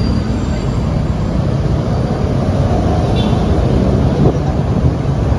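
Steady low rumble of street traffic and motorcycle engines, heard while riding along with the traffic.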